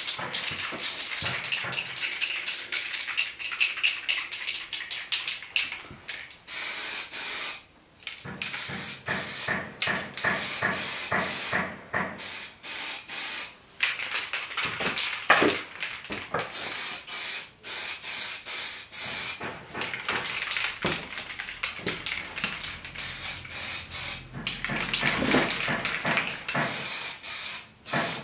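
Aerosol spray-paint can hissing in repeated bursts of a few seconds each, with short breaks between them, as black paint is sprayed onto engine casings.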